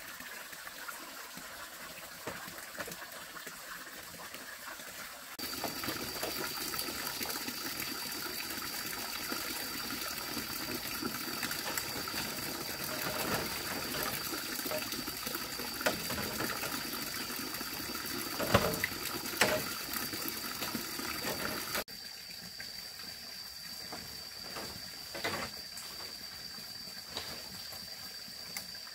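Water trickling and splashing. It turns abruptly louder about five seconds in and drops back abruptly a little past twenty seconds in. A steady high-pitched tone sits behind it from about five seconds in, and a few short knocks fall in the louder stretch and once more near the end.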